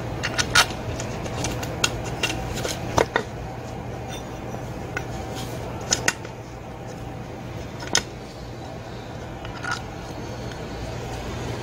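Scattered sharp clicks and light knocks of small parts being handled and fitted as a replacement ignition coil goes onto a brush cutter's engine housing, over a steady low hum.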